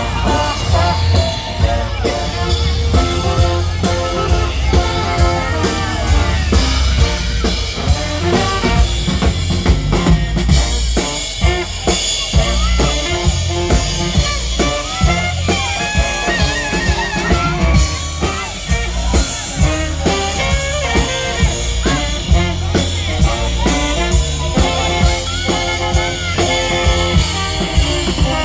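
Live band playing, a drum kit keeping a steady beat over a heavy bass line with other instruments on top.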